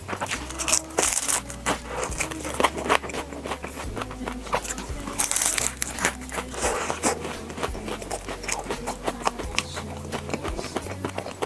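Close-miked eating sounds, with dense crisp crunching, crackling and crinkling, over soft background music with a low bass line.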